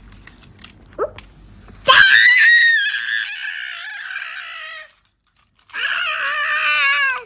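A child screaming twice in long, loud, high-pitched held cries: the first starts about two seconds in and lasts about three seconds, and after a short pause a second, slightly lower scream runs until near the end.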